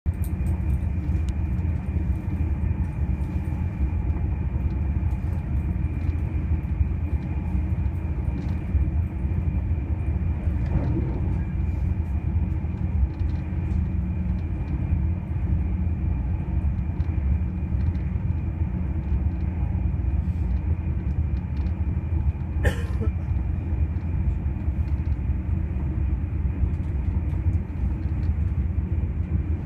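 Bombardier Contessa electric train running at speed, heard from inside the passenger car: a steady low rumble with a faint steady high whine. A single sharp click comes about three-quarters of the way through.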